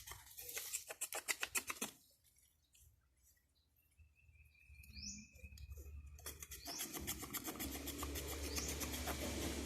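A hand tool works wood in quick scratchy strokes for about two seconds. After a quiet gap, the rasping picks up again about six seconds in and carries on steadily.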